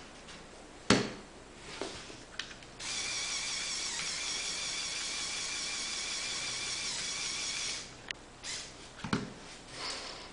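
A Lego Technic truck's small electric motor running through its plastic gears with a steady whine for about five seconds, starting and stopping abruptly. A sharp click about a second in and a few plastic knocks near the end.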